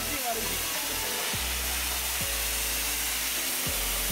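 Steady rushing hiss from a working steam boiler and steamer, under background music with a low bass line that changes note every second or so.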